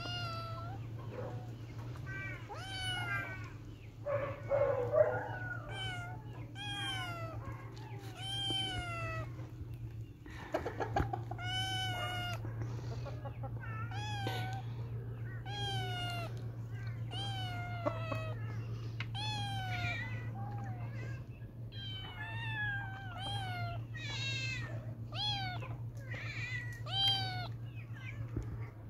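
Kitten meowing over and over: short, high calls about once a second, each falling in pitch. A steady low hum runs underneath.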